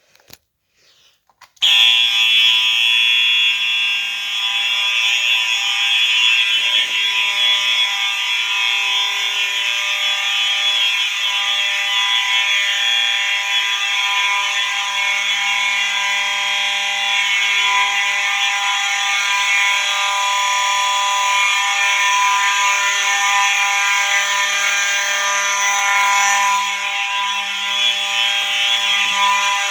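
Several fire alarms on a test system sound together, starting suddenly about two seconds in and then holding a loud, steady, continuous tone.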